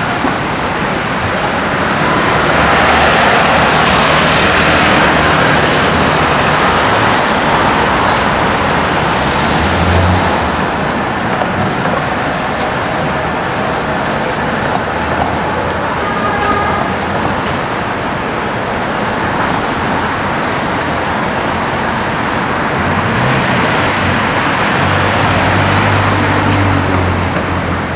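City street traffic: passing cars and taxis, a steady hiss of tyres on wet pavement with engine hum, swelling as vehicles go by, and a deeper engine note from a nearby vehicle near the end.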